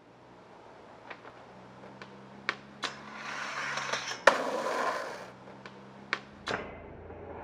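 Skateboard wheels rolling on pavement, growing louder and then fading, broken by several sharp clacks of the board. The loudest crack comes about four seconds in, and another snap comes shortly before the skater is in the air for an ollie off the stairs.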